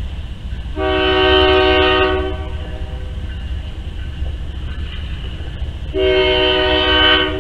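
Nickel Plate Road 765, a 2-8-4 Berkshire steam locomotive, sounding its whistle for a grade crossing as it approaches. There are two long blasts of about a second and a half each, with a gap of about three and a half seconds between them, over a steady low rumble.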